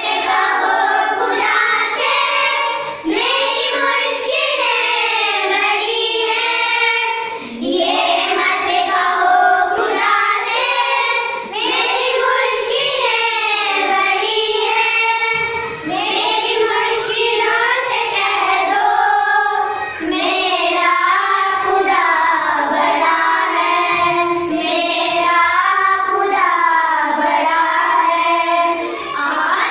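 A group of schoolchildren singing a song together, their voices breaking off briefly between lines every few seconds.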